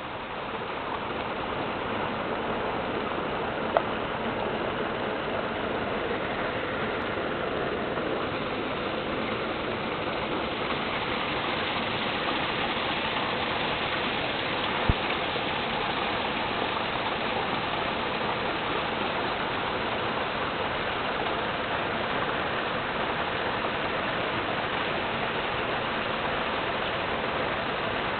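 Small mountain stream rushing over rocks: a steady, even rush of water that grows louder over the first couple of seconds and then holds. Two single sharp clicks cut through it, about four and fifteen seconds in.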